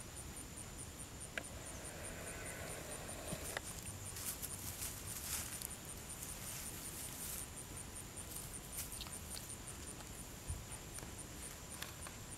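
Dry straw rustling as a puppy is handled and set down on it, with a few light clicks, over a steady high chirping of insects, about three chirps a second.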